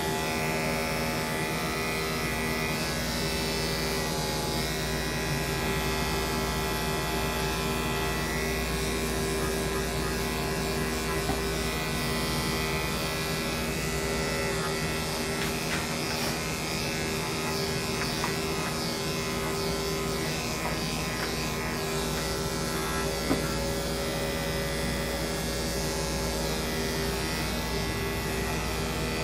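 Corded electric dog-grooming clippers running steadily, clipping a long-haired dachshund's coat on the legs and paws.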